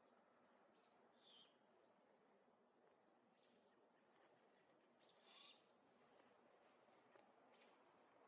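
Faint outdoor ambience: short, high bird chirps repeat throughout over a soft steady hiss, with two brief raspy bird calls, one about a second in and one about five seconds in.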